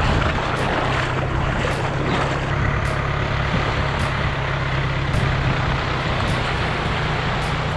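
Diesel engine of a John Deere utility tractor running steadily under load as it pulls a loaded jet ski trailer out of the water.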